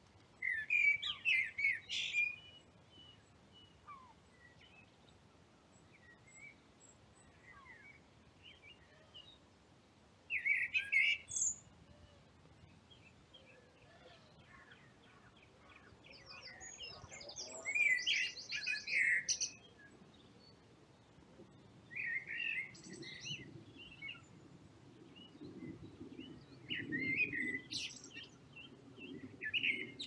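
Eurasian blackbird singing: about six short warbled phrases a few seconds apart, some ending in high, thin twittering. A faint low rumble comes up in the background in the last few seconds.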